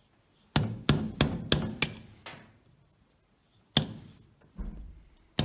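Wooden mallet striking a wood-carving gouge as it cuts into a block of wood: six blows about three a second, a pause of over a second, then a few more scattered blows.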